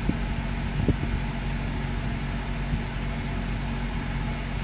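Steady low mechanical hum and rumble of background noise, with a couple of faint knocks in the first second.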